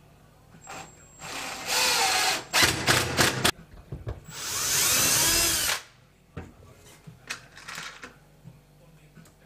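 Cordless drill running into a wooden wall rail: one run, a few short trigger spurts, then a second longer run whose pitch rises and falls as the motor loads. Near the end a few light knocks as the drill is set down on the bench.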